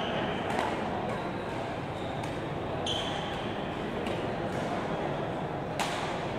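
Badminton rally in a large hall: about five sharp hits of racket on shuttlecock, the sharpest near the end, with a few brief shoe squeaks on the court floor. Under it runs a steady murmur of the hall.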